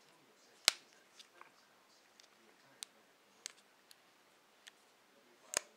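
Sharp plastic clicks and ticks of a Sanyo Xacti VPC-E2 camcorder being handled, a loud click about a second in and another near the end, with lighter ticks between.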